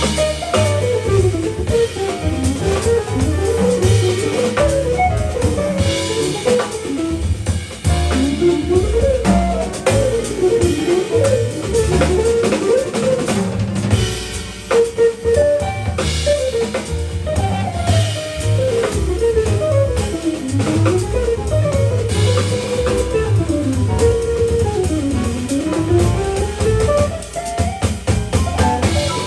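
Live jazz: a semi-hollow electric guitar plays a fast single-note solo in runs that climb and fall, over a drum kit and upright bass.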